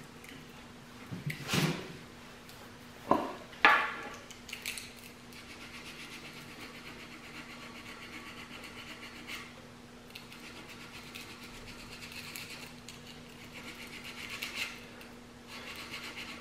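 Rolled-up 60-grit sandpaper being ground by hand against a carved wooden walking stick, making faint, scratchy rubbing strokes. A few sharp knocks come in the first four seconds. A steady low hum runs underneath.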